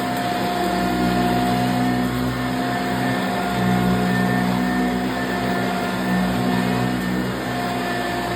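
1987 Eureka self-propelled upright vacuum cleaner running steadily: a motor hum with a constant high whine over it.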